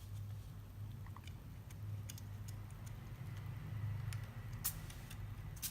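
Handling noise: a few faint, sharp clicks from small objects being moved about, over a steady low hum.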